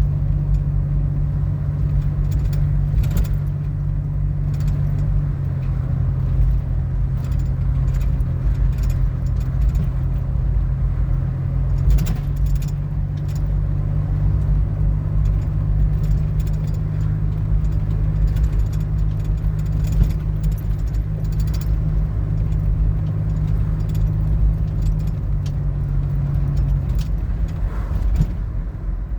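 Car running down the road heard from inside the cabin: a steady low engine and road drone, with light rattling and jingling clicks scattered through it.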